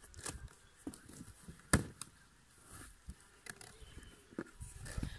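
Handling noises from a cardboard parcel being opened: scattered light clicks and scrapes, with one sharp knock a little under two seconds in.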